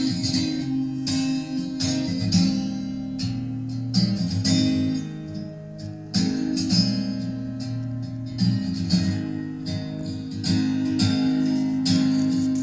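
Acoustic guitar strumming chords in a steady rhythm, an instrumental passage of a song with no singing.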